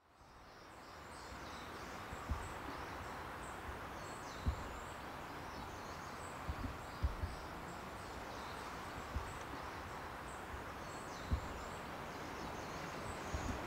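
Outdoor ambience fading in: a steady soft hiss with small birds chirping faintly and repeatedly, and a few soft low thumps.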